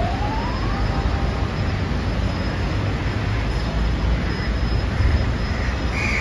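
Steady low rumble of outdoor street traffic, with a faint rising whine in the first second and a short high tone near the end.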